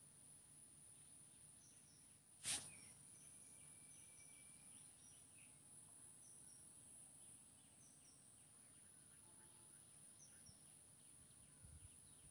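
Near silence with faint background: a steady high drone and a few soft, short chirps, like insects and birds. One sharp click about two and a half seconds in.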